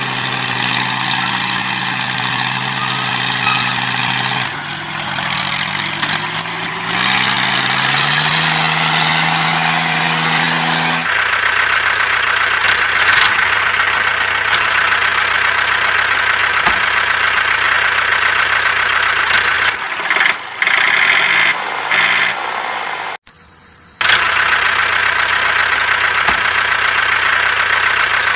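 Tractor engine running: a steady low chug that rises in pitch about five seconds in, then settles into a harsher steady running after about eleven seconds, briefly cutting out for about a second near the end.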